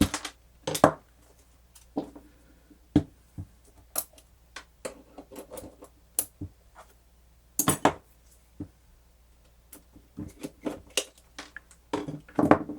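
Small metal screws being backed out of a plastic cassette player's case with a screwdriver and set down, giving scattered sharp clicks, taps and clinks with short pauses between them.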